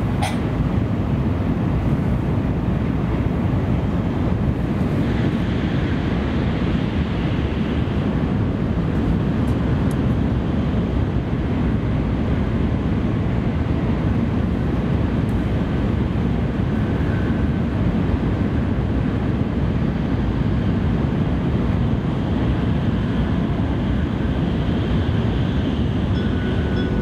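Tokaido Shinkansen train running at speed, a steady, dense rumble heard from inside the passenger car while it runs through a tunnel. A single sharp click comes right at the start.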